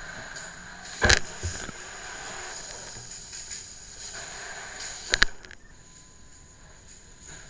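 Heavy blows of a firefighter's hand tool striking the burnt house structure: one loud strike about a second in, and a quick double strike about five seconds in, over a steady hiss.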